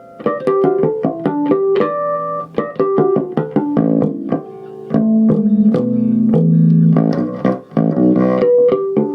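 ESP LTD B-206SM six-string electric bass played with the treble turned up: a fast run of tapped notes and harmonics, with a few longer low notes held about five to seven seconds in.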